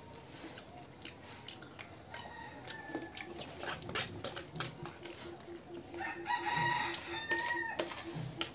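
A rooster crowing, one long call about six seconds in, with a fainter call a few seconds earlier. Spoons clink and scrape on plates.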